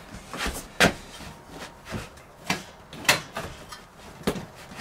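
A handful of irregular sharp knocks and clicks, the loudest about a second in and about three seconds in. They come from hands gripping and tugging at an RV gas range's metal body and trim, trying to pull it free of its cabinet.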